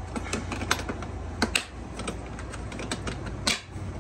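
Irregular light clicks and clatter of hand tools being handled in a toolbox drawer, with a few louder knocks about a second and a half in and near the end, over a steady low hum.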